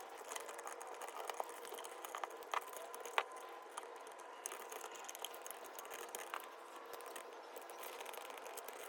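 Faint scattered clicks and taps of a GFCI outlet and its wires being handled while it is wired up, with a sharper click about three seconds in, over a faint steady hum.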